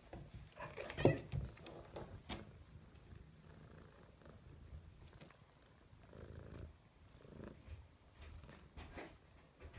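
Domestic cat purring close up, the purr swelling and fading in slow waves. A few sharp clicks in the first seconds, the loudest about a second in.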